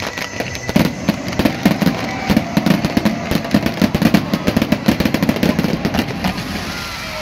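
Fireworks barrage: a rapid volley of shells and mines launching and bursting, with many sharp pops a second and a crackle among them. It starts about a second in and eases off near the end.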